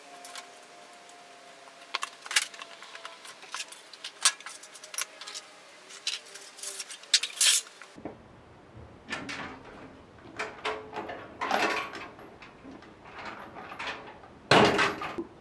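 Sharp metal clicks, clinks and knocks from work on a pickup's steel tailgate and its hardware, then the tailgate is raised and shut with a loud metal clank near the end.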